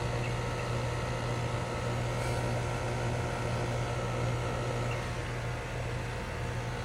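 2008 Goodman 3-ton central air conditioner's outdoor unit running steadily: a constant low hum from its Copeland scroll compressor under an even rush of air from the condenser fan.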